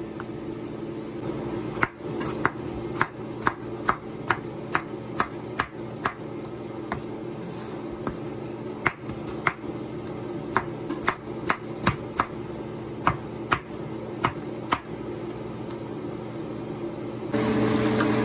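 Kitchen knife slicing raw potato on a wooden cutting board: a steady run of sharp knocks of the blade on the board, two or three a second, with a short pause near the end. Just before the end, pork belly starts sizzling in a frying pan.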